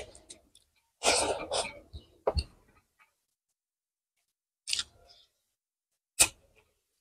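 Eating by hand: a short rustling scrape of rice being mixed with the fingers on a brass plate about a second in, then a few brief clicks and mouth smacks, the sharpest near the end as a handful goes into the mouth.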